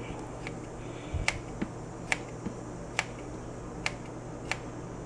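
Kitchen scissors snipping through raw lamb shank meat, each closing of the blades a sharp click, about five of them a little under a second apart, over a low steady hum.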